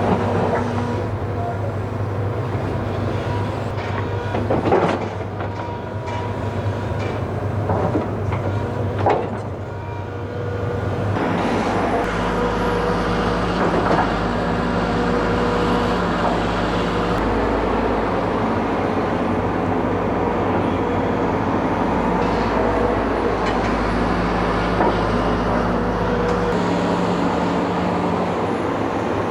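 Hidromek 220 LC hydraulic excavator's diesel engine running steadily, with several sharp clanks in the first ten seconds. About twelve seconds in the engine note deepens and grows louder, and stays that way until near the end.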